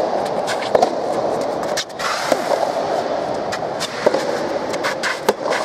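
Soft tennis rally: sharp pops of rackets striking the soft rubber ball, one of them about four seconds in, over a steady din of voices and play from the surrounding courts.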